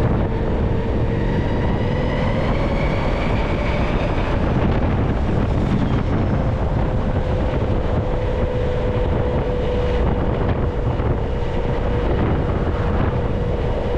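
Zero SR/S electric motorcycle riding: a thin motor whine rises in pitch over the first few seconds as the bike speeds up, then holds steady and eases slightly, under heavy wind noise on the microphone.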